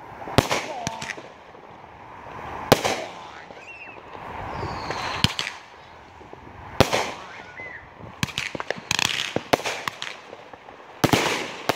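Consumer aerial fireworks going off: sharp bangs of shells bursting at irregular intervals, with a quick run of several bangs about nine seconds in. A hissing launch is heard around five seconds in.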